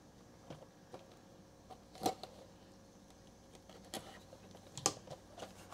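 Scattered light clicks and taps of a cardboard trading-card blaster box being handled and its plastic wrap cut open with a small box cutter, the sharpest click about two seconds in.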